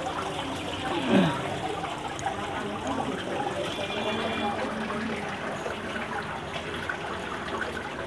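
Small artificial waterfall in a decorative shrine display, water splashing and trickling steadily into a mini pond. A brief louder sound about a second in.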